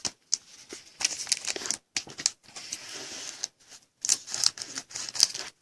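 Plastic trading-card packaging crinkling in a string of short, hissy rustles with brief pauses between them, as packs and cards are handled.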